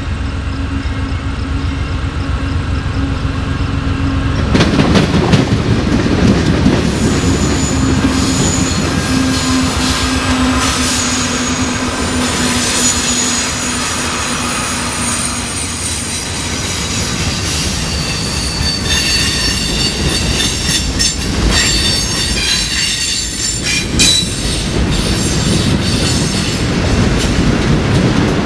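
Diesel freight train passing close: a steady engine note as the locomotive approaches, becoming much louder about four seconds in as it goes by. Then the long rumble and rattle of freight cars rolling past, with high-pitched wheel squeal and repeated clicks of wheels over rail joints.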